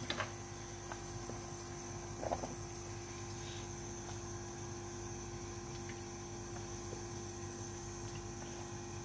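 Steady hiss of a pot of chicken vegetable soup boiling on a gas stove, under a constant hum, with one faint ladle knock about two seconds in.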